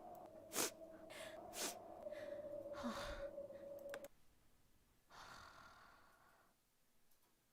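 A man's breathing: two short breaths, then a longer sigh, over a faint held note of background music that stops about four seconds in. One more soft breath out follows about a second later.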